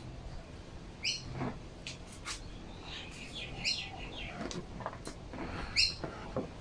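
A small bird chirping three times, one short high call about every two and a half seconds, over soft clicks and rustling from hands fitting rubber fuel lines onto a trimmer carburetor.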